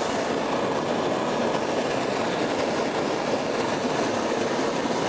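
Handheld gas blowtorch burning with a steady rushing hiss while heating the end of a copper pipe for soldering.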